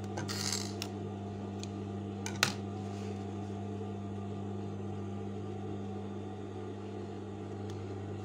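Industrial sewing machine's motor humming steadily while the needle is not stitching. Fabric rustles briefly near the start, and a single sharp click comes about two and a half seconds in.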